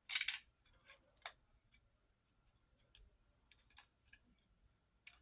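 Faint handling noises of an object being picked up and shown: a short rustle at the start, a click about a second in, then a scatter of light clicks and taps.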